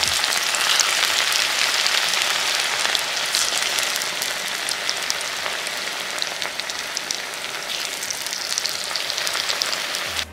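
Marinated chicken 65 pieces deep-frying in hot oil in a small iron kadai: a steady, dense sizzle full of small crackles.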